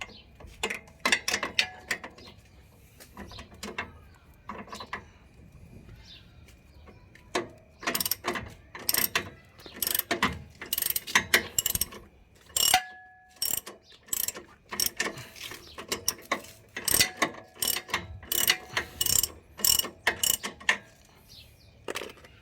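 Ratchet wrench clicking in repeated bursts of strokes on the 17 mm nut of a car's stabilizer link, with short pauses between the bursts and a faint metallic ring.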